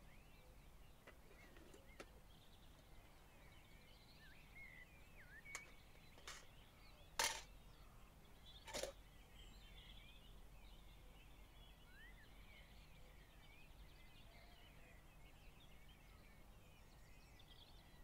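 Faint birdsong, many small chirping notes. A few light metallic knocks land midway through, the loudest a little past seven seconds in, as the aluminium parts of a Trangia spirit stove are handled.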